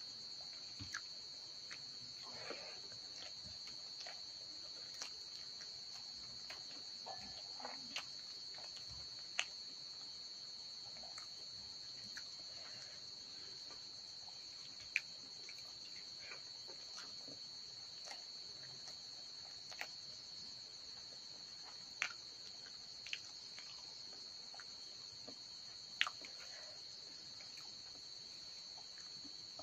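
Crickets trilling steadily, with faint soft sounds of rice being mixed by hand and a few sharp clicks of fingers and rings against the metal bowl.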